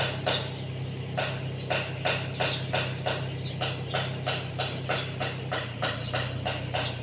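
Mini excavator's diesel engine running steadily, with a regular clicking on top of it, about three clicks a second.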